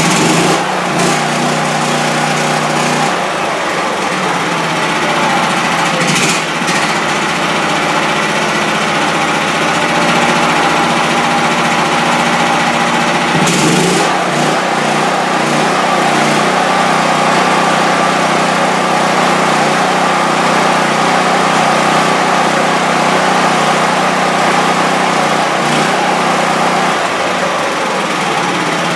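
DuroMax XP10000E generator's 16 hp four-stroke engine running steadily, just after starting. Its note shifts about three seconds in, and again around the middle with a brief clatter.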